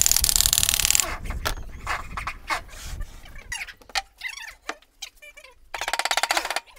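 A handheld power tool fastening the plywood panels of a speaker cabinet: a rapid buzzing run of strokes about a second long, and another near the end, with knocks and clatter of the panels being handled between.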